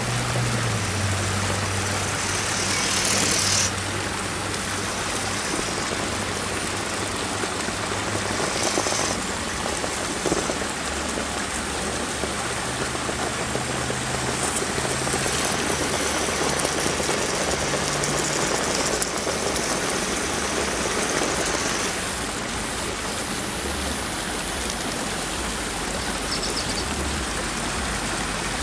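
Steady rush of creek water running over rocks, with the RC rock crawler's electric motor whining faintly at times underneath.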